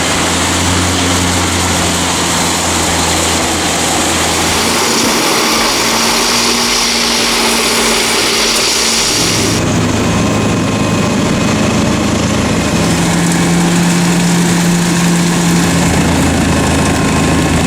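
Komptech Chippo 5010 CD mobile wood chipper running, its diesel engine humming steadily under a loud, dense chipping noise. The sound changes abruptly about ten seconds in.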